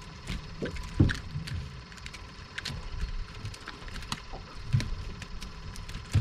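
Irregular clicks and knocks, with a few dull thumps, the loudest about a second in, as a small speckled sea trout is reeled to a skiff and swung aboard on the rod and line.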